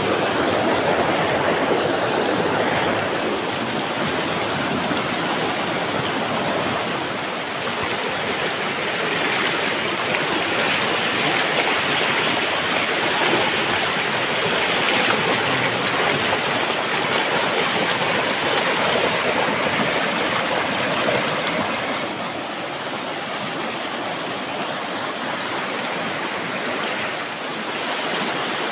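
Fast, shallow mountain river rushing over rocks: a loud, steady rush of whitewater close to the microphone, easing a little about three quarters of the way through.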